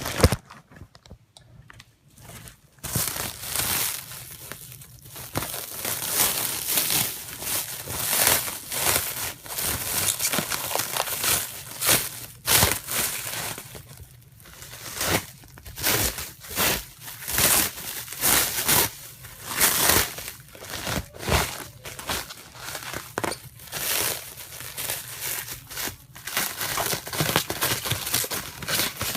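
Plastic packaging being crinkled and torn open by hand, in irregular bursts that begin about three seconds in.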